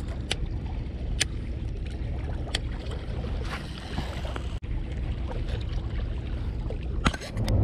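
A baitcasting reel being handled and wound, giving a few short sharp clicks over a steady low rumble.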